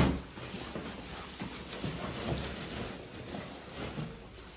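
A parcel thumps into a woven plastic sack at the start, then the sack rustles and crinkles with small knocks as hands hold it open and pack cardboard boxes into it.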